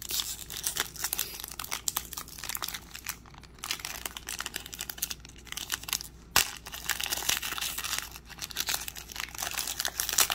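Foil wrapper of a trading card pack crinkling as it is gripped and torn open by hand, with one sharp crack about six seconds in.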